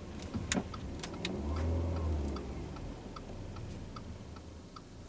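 Car indicator ticking steadily inside the cabin of an Audi A5, about two and a half ticks a second. Two sharp switch clicks come in the first second, and a brief low hum follows about a second and a half in.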